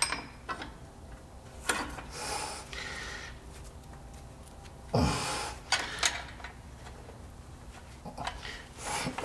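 Light metal clicks and scrapes of brake parts being handled as a dust shield is worked back into place on an air disc brake caliper, with one louder scrape about five seconds in.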